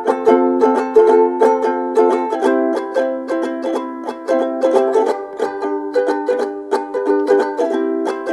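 Background music: a plucked string instrument picking quick, evenly spaced notes, about four a second, over sustained chords.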